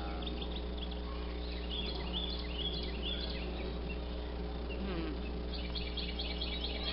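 A steady buzzing hum on a few fixed tones. Small birds chirp over it about two seconds in, and again in a quick run of notes near the end.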